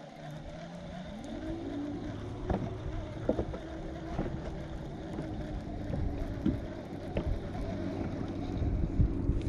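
A boat motor's hum, rising in pitch about a second in and then holding steady, over a low wind-like rumble with a few light clicks.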